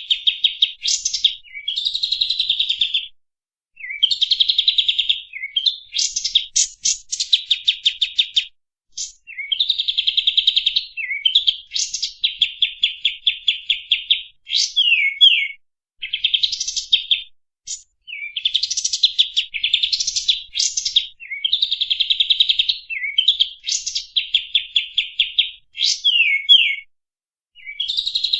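A kapas tembak songbird singing a long, unbroken song of rapid, rattling trills with quick rising sweeps, in phrases a few seconds long separated by short pauses.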